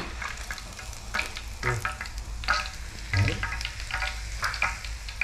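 Pieces of field rat frying in hot oil in a pan: a steady sizzle broken by many sharp crackles and pops.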